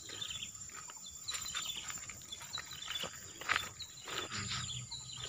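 Footsteps on a dirt path, with short bird chirps and a steady high insect whine behind them.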